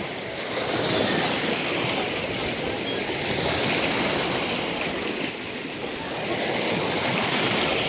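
Small Black Sea waves washing up on a sandy beach, a steady rushing hiss that swells and ebbs, easing off about five seconds in and building again near the end.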